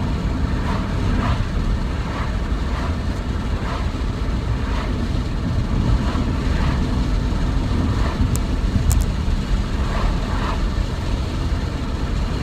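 Steady low rumble of wind and ocean surf at a beach, with no clear breaks.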